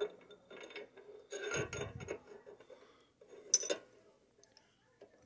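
Light metal clinking and scraping as a threaded steel shaft is pushed against the bore of a flange nut held in a lathe chuck, a test fit that still doesn't quite go in. A longer scrape comes about a second and a half in, and a sharp click about 3.5 s in.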